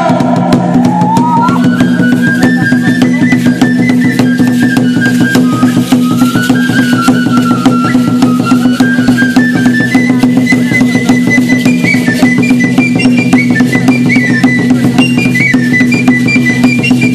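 Ceremonial music: fast, steady drumming over a sustained low drone, with a single high melody line that steps up and down in pitch.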